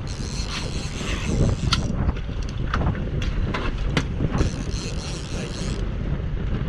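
Wind buffeting the microphone over the low, steady rumble of the fishing boat's engine, with several sharp clicks and knocks in the middle.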